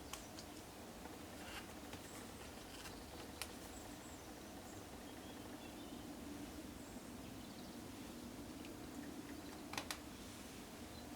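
Faint scattered clicks and taps of laptop parts and a small screwdriver being handled, the loudest a quick pair of clicks near the end, over a steady low hum.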